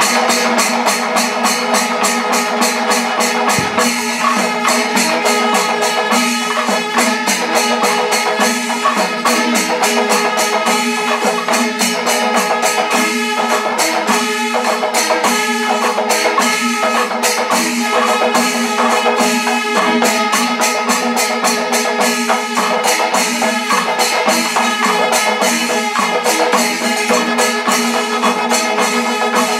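Panchavadyam temple ensemble playing: timila drum strokes and ringing ilathalam cymbals in a fast, dense rhythm over a steady held tone.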